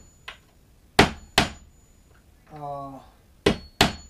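Hammer tapping a center punch to set a nail head below the surface. There are sharp metal-on-metal strikes: a light tap just after the start, two about a second in, and two more near the end.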